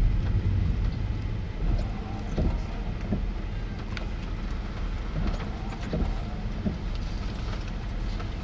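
Steady low rumble of storm wind near a tornado, swelling and easing unevenly, with a few faint taps.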